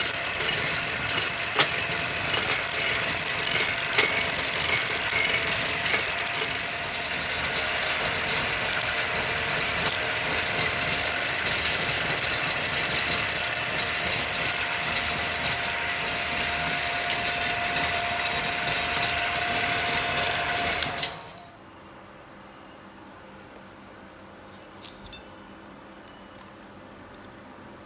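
A motor-driven camshaft copying machine running with a steady whine and a busy rattle of clicks. It cuts off abruptly about 21 seconds in, leaving only a faint steady hiss.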